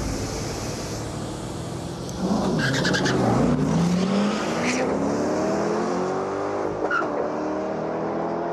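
Street-race cars launching from a standing start: about two seconds in the engines rev hard, then one engine note climbs steadily in pitch as the car accelerates away.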